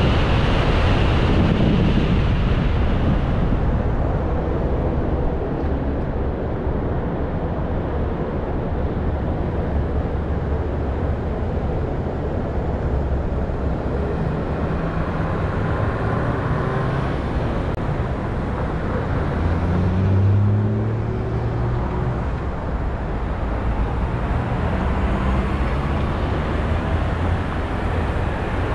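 Car road and wind noise as the car slows to a stop, then a steady traffic rumble while it waits at a red light, with engine hum from vehicles crossing in front; one passing vehicle is louder about two-thirds of the way through.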